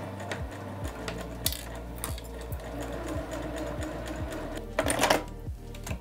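Sewing machine stitching a straight seam, running steadily, with a brief louder noise about five seconds in.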